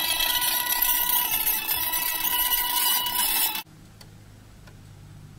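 Vinyl record playing far too fast on a direct-drive turntable whose speed-control sensor has been removed, heard through a small plug-in speaker as a dense, high-pitched wash of sound. It cuts off suddenly about three and a half seconds in as the stylus is lifted off the record, leaving a faint low hum.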